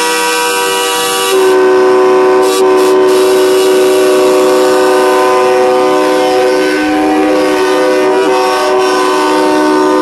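Semi-truck air horns blaring continuously, several sounding at once in a held chord; the blast gets louder and changes pitch about a second in.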